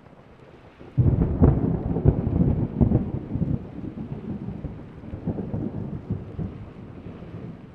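Thunder: a sudden loud crack about a second in, then a crackling, rolling rumble that slowly eases but keeps grumbling on.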